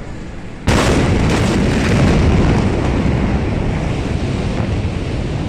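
Blast of the 2020 Beirut port ammonium nitrate explosion: a sudden loud boom less than a second in, then a sustained rumbling roar with wind-like buffeting on the phone's microphone, slowly easing.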